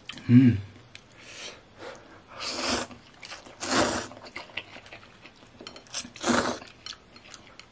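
A person slurping instant noodles in soup from a bowl: four short, loud slurps a second or two apart.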